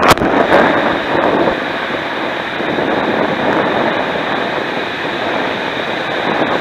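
Water rushing and spraying around a rider sliding down an enclosed waterslide tube, a loud steady hiss with a sharp knock just at the start.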